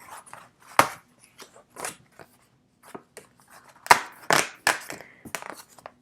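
Thick punch-out cardboard cards being handled and set in place: a string of sharp clicks and short rustles, the loudest about a second in and again around four seconds in.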